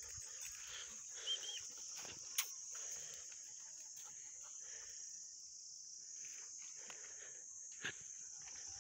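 Steady high-pitched drone of insects in the background, with a short chirp early on and two sharp clicks about 2.4 and 8 seconds in.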